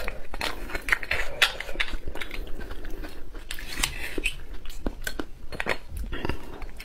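Mouth sounds of eating beef bone marrow: wet chewing and smacking in many short, sharp clicks, along with a metal spoon scraping marrow out of the bone.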